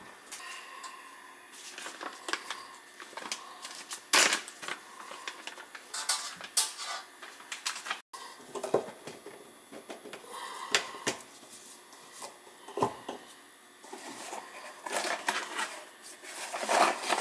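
Scattered clicks, taps and knocks of small plastic and metal faucet parts being handled at a kitchen sink, with the loudest knock about four seconds in and a flurry of clicks near the end.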